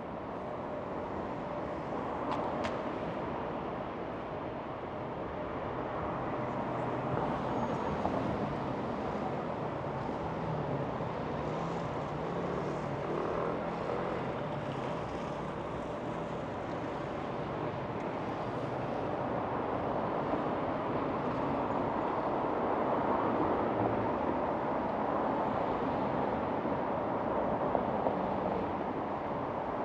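City street traffic: cars passing in a steady wash of noise that grows somewhat louder over the second half.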